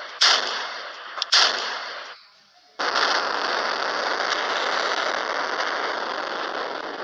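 Gunshot sound effects played back as ringtones. Two sharp shots, each with a fading tail, come in the first second and a half, then a continuous rush of noise lasts about four seconds.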